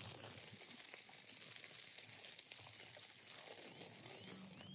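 Lamb fat dripping onto hot charcoal under grilling skewers, sizzling and crackling softly. A bird chirps a few times near the end.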